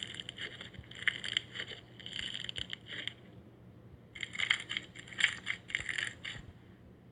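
Slime being squeezed and worked by hand, giving crackling, clicking pops in four short bursts with brief pauses between them.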